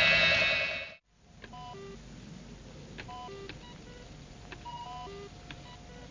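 Music cuts off about a second in. Then a science-fiction computer console beeps: short electronic tones at several different pitches, played in quick little sequences over a faint hum.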